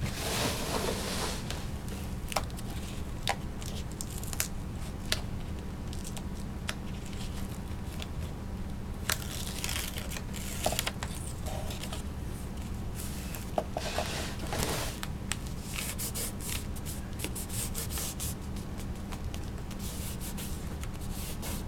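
Rustling and crinkling of an adhesive book repair tape strip being handled: its paper backing peeled off and the tape rubbed down by fingers into a book's hinge. Scattered small crackles over a steady low hum.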